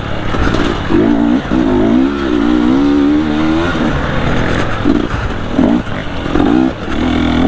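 Two-stroke engine of a KTM 250 XC TPI dirt bike, its pitch rising and falling as the throttle is worked over and over on a trail, breaking into short blips in the middle, with scattered knocks.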